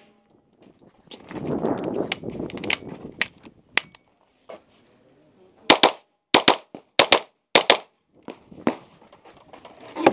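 CMMG MK9T 9mm short-barreled carbine firing a string of shots, many in quick pairs a fraction of a second apart. About a second in there are a few seconds of rustling noise, with a few shots scattered through it.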